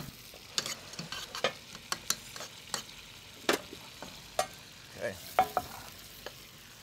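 Wooden spoon stirring and scraping mushroom risotto in a metal pan, with irregular sharp knocks of the spoon against the pan over a faint steady sizzle from pans on the stove.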